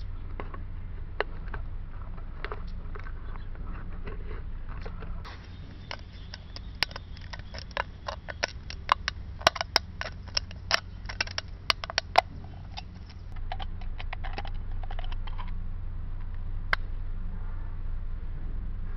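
Utility knife blade scraping around a thin aluminium drink can to score it. Then, about five seconds in, the can wall crackles and snaps in a quick run of sharp clicks as it is bent and torn apart along the scored line. The clicks are densest in the middle and thin out near the end.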